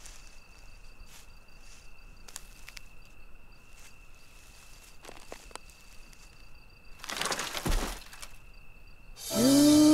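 Night ambience of insects chirring in one steady high tone, with scattered crackles and rustles of dry bamboo leaves and a louder rustling swell about seven seconds in. Music comes in near the end with a held note that slides up and wavers.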